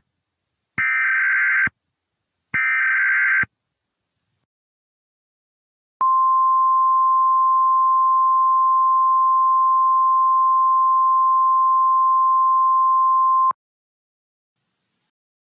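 Emergency Alert System header in NOAA Weather Radio style, signalling the start of a new alert: three short buzzy digital data bursts about a second apart (the first mostly just before), then after a pause a single steady high alert tone lasting about seven and a half seconds. The alert is a tornado warning.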